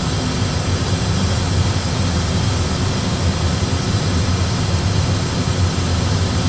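Steady cockpit noise in an Airbus A320 flight simulator: a constant low rumble of simulated engines and airflow under an even hiss, unchanging throughout.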